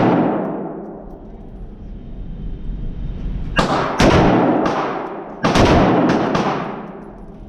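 AR-15 rifle shots echoing in an indoor range. The ring of a shot fades over the first second. Then about half a dozen shots come in two quick groups past the halfway mark, each trailing a long echo off the walls.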